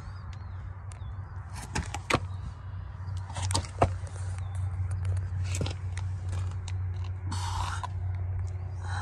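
Footsteps on gravel and scattered knocks and rubs from handling the camera held low under a minivan, the sharpest about two and four seconds in, over a steady low hum.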